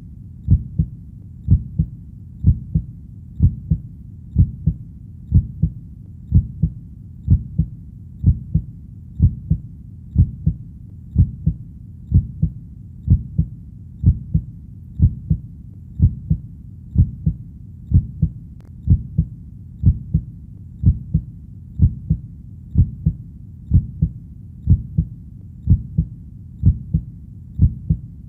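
Human heartbeat: a steady 'lub-dub' double beat at about one a second, low and dull, over a faint low rumble.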